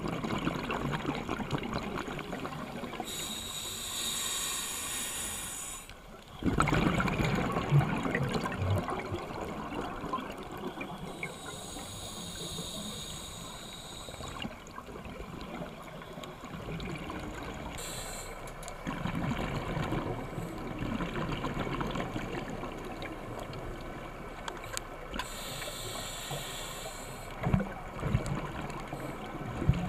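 Scuba diver breathing through a regulator, heard underwater: three hissing inhalations, about three, eleven and twenty-six seconds in, with the bubbly rush of exhaled air between them, loudest just after the first breath.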